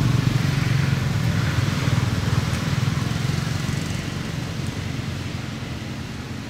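A motor vehicle going past, its low engine and road rumble loudest in the first two seconds and then slowly fading away.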